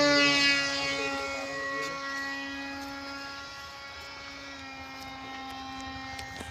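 Radio-controlled model jet's motor giving a steady whine as the plane flies away overhead, loudest at first and fading over the first few seconds, then holding faintly.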